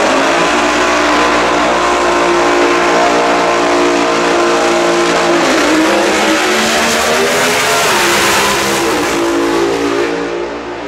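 Supercharged V8 Funny Car engine idling loudly and unevenly at the drag strip start line while the car stages, its pitch shifting a couple of times with small throttle changes. The sound falls away near the end.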